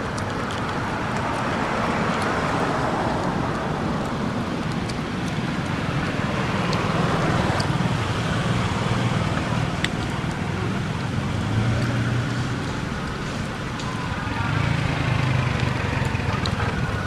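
Steady outdoor background rumble that swells and fades every few seconds, with a few faint clicks.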